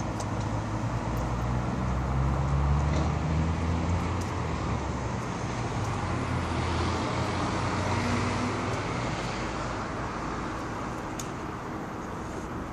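Audi B8.5 S4's supercharged 3.0 V6 driving past: the engine note climbs over the first few seconds, then tyre noise swells and fades away as the car passes.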